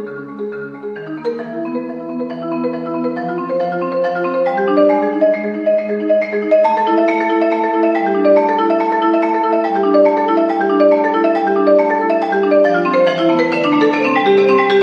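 Solo marimba played with four mallets: a continuous flow of struck and rolled notes across the range of the wooden bars. It starts soft and grows louder over the first several seconds.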